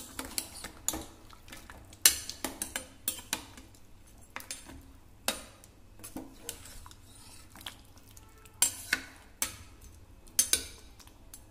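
Steel spoon clinking and scraping against a stainless-steel pot as pieces of mutton in their juices are turned over. The knocks come irregularly, roughly a second or two apart, with quick clusters of clinks about two seconds in and again near the end.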